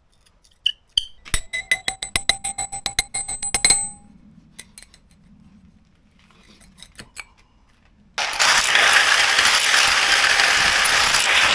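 A fast run of light strikes on metal, about twenty in two and a half seconds, each setting off the same ringing tone, as a metal part is tapped at the intake hole. A few seconds later a loud, steady, hissing noise starts suddenly and runs on.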